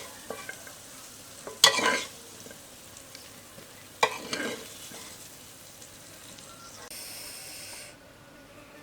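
Chicken stir fry sizzling in the pan, with a spatula scraping through it twice.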